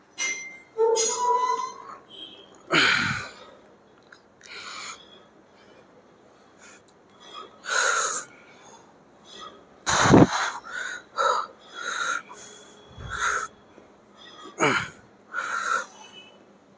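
A man's heavy, forceful breathing: sharp exhales about every one to two seconds as he strains through a set of incline dumbbell skull crushers taken to failure, the loudest about ten seconds in. A short ringing tone about a second in, as the dumbbells are lifted into position.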